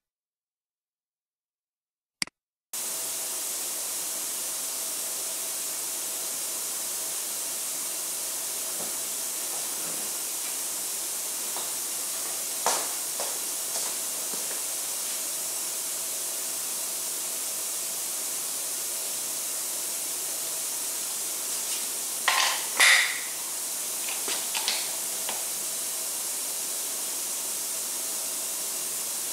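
Steady hiss with a faint hum tone, starting abruptly a few seconds in. Over it come a few light clicks about midway and a louder cluster of knocks near the end, from the torque transducer being handled as torque is applied to it.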